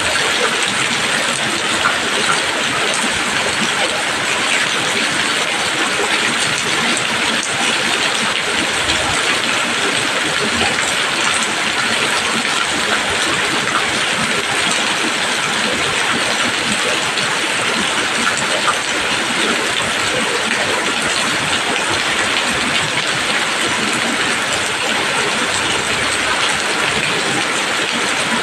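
Steady heavy rain falling on leaves, a dense even hiss of countless drops.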